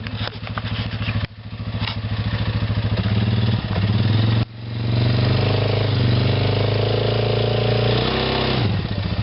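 ATV engine running at idle, then revved up and held at higher revs for several seconds, dropping back toward idle near the end.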